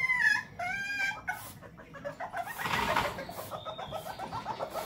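Animal calls: two short pitched calls in the first second and a half, a brief rough noise near the middle, then a fast run of clucking pulses.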